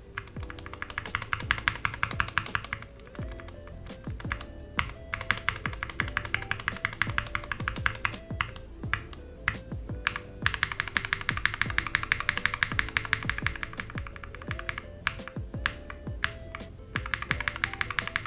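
Steady typing on a mechanical keyboard: first on stock Gateron Brown tactile switches, then, after a short pause about ten seconds in, on stock KTT Mallo tactile switches, whose long-pole stems give a louder, clackier bottom-out. Background music plays underneath.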